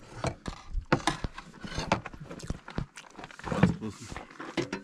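A person eating boiled meat close to the microphone: wet chewing and smacking clicks, with a brief voiced sound about three and a half seconds in.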